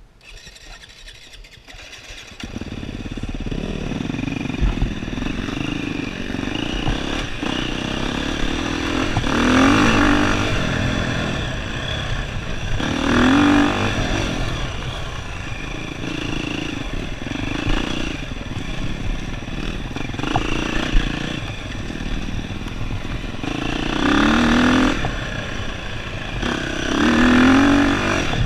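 Dirt bike engine, quiet at first, then running loudly from about two seconds in as the bike rides a rough single-track trail. The throttle opens into revs several times, with the rattle of the bike over the ground underneath.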